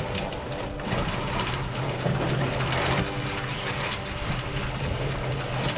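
Sailboat's auxiliary engine running steadily as the boat motors along, over the rush of wind and water.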